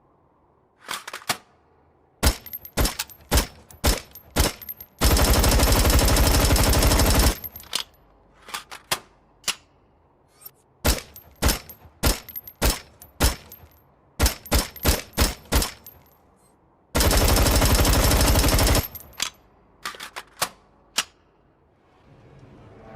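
Steyr AUG bullpup assault rifle firing: a string of single shots, then a full-automatic burst of about two seconds, more single shots, a second automatic burst of nearly two seconds, and a few last single shots.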